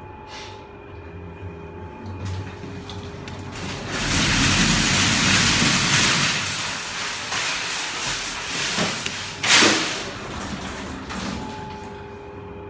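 A Schindler freight lift's sliding car doors opening and closing. A loud rush of noise swells about four seconds in and slowly eases, and a sharp bang comes about nine and a half seconds in.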